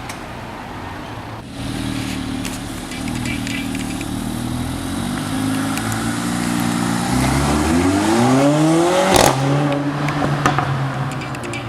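Mercedes-Benz CLA 45 AMG's turbocharged 2.0-litre four-cylinder engine being revved. The note steps up and down, then climbs steeply and ends in a loud exhaust bang as the revs drop, followed by a few smaller pops and crackles.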